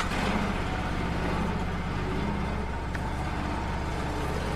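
Wood-Mizer LT35 portable sawmill's engine idling steadily, a low even hum.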